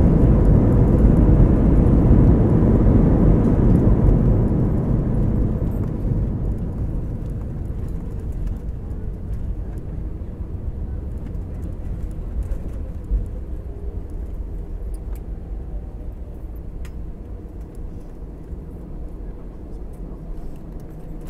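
Airbus A321 cabin noise on the landing rollout: a loud rumble of engines and wheels on the runway that dies away steadily from about four seconds in as the airliner slows.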